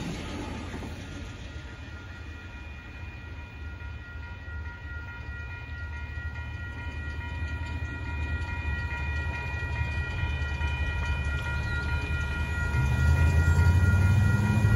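The last Amtrak Superliner passenger cars rumble over the grade crossing, then the crossing's warning bell rings steadily while the signals flash. Near the end, road vehicles move off over the tracks and their rumble grows louder.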